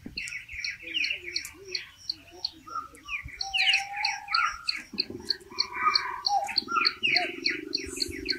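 Birds chirping and calling in quick, varied bursts over a regular run of short high ticks. About five seconds in, a steady low buzz joins them.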